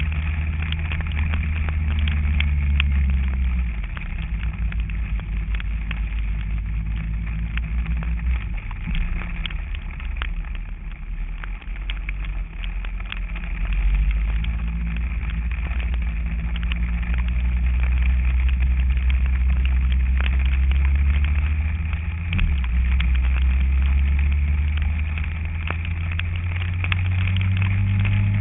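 Kawasaki ZZR1400 inline-four engine running on the move, its note dropping and climbing several times with throttle and gear changes, over steady wind and road noise.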